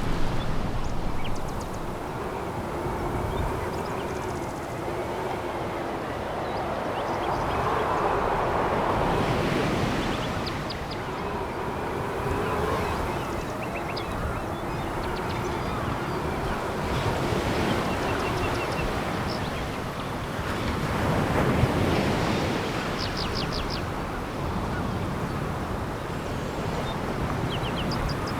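Sea waves breaking and washing over a pebble beach, surging and easing every few seconds, with faint wavering tones and scattered ticks beneath.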